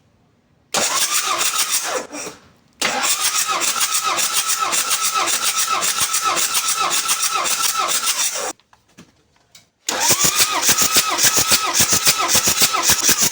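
Toyota 1KZ four-cylinder turbodiesel being cranked over by its starter in three bursts: a short one, a long one of about six seconds, then another near the end. Each is a rhythmic pulsing churn that cuts off abruptly without settling into an idle.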